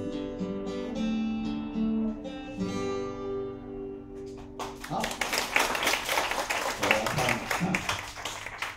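Acoustic guitar closing a song with a few slow ringing notes, then audience applause starting about halfway through and lasting some four seconds.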